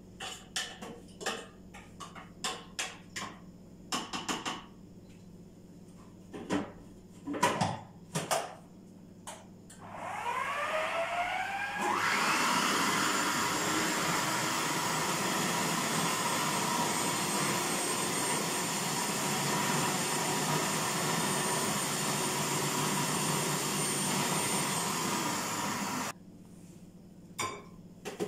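Spoon clinks and knocks against a blender jar, then an electric blender motor starts about ten seconds in, rising in pitch as it spins up, and runs steadily for about fourteen seconds, chopping onion, garlic and greens for falafel paste, before cutting off suddenly. A few knocks follow.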